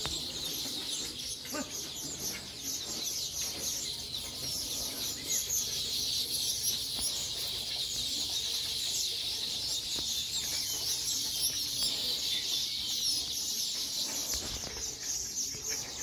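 A flock of weaver birds chirping all at once, a dense high twittering chorus of many short overlapping chirps that goes on without a break.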